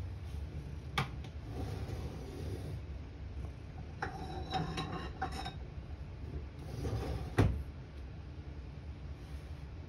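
Household objects being handled: a sharp knock about a second in, rustling and scraping with a few short clinks in the middle, and a louder knock near the end, over a steady low hum.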